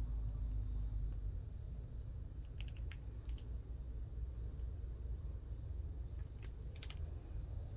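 A few light clicks and taps of a hard plastic graded-comic case being picked up and handled, in two small clusters about three seconds in and again nearer the end, over a low steady rumble.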